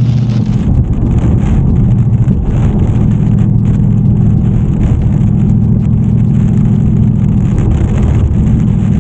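Inside a car cruising at highway speed: a steady engine drone under constant road and wind noise, with rain on the windshield and the wipers running.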